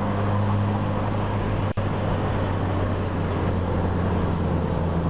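Car engine running steadily on a climb, with tyre noise on a wet road, heard from inside the cabin. The engine's pitch dips slightly about three and a half seconds in. There is a split-second dropout in the sound a little under two seconds in.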